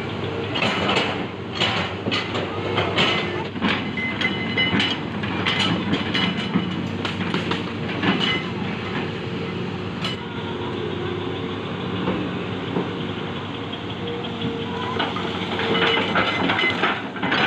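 Hitachi ZX200 hydraulic excavator's diesel engine running steadily, with repeated metallic knocks and clanks over it, most frequent in the first half.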